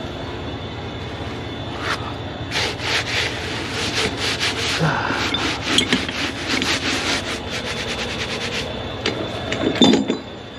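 Gloved hands rubbing and scraping off mud in a run of quick strokes, over the steady hum of an engine running, with a knock near the end.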